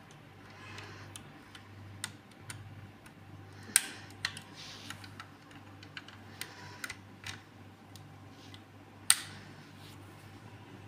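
Small sharp clicks and snaps of a 1:32 diecast model car's opening doors and hinges being handled and swung open by hand, with faint rustling between them. Two clicks, about four seconds in and about nine seconds in, are the loudest.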